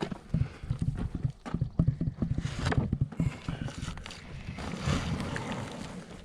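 Irregular knocks and thumps of heavy oak slabs being handled and stacked, with footsteps.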